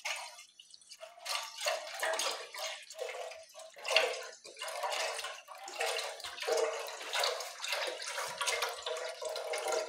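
Milk pouring from a carton into a metal pot, the stream splashing unevenly. It starts about a second in.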